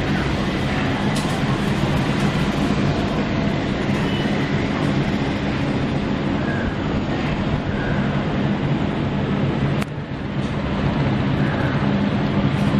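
Ceiling fan running fast on extended downrods and wobbling hard: a steady, loud rumbling rattle with a low motor hum under it. It dips briefly about ten seconds in.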